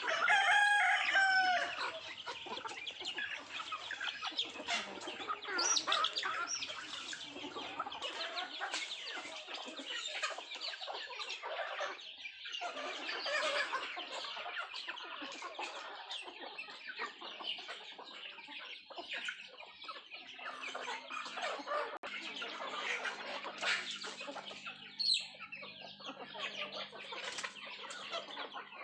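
A flock of country chickens clucking steadily while pecking at their feed, with many short pecking ticks. A rooster's crow, the loudest sound, opens the stretch.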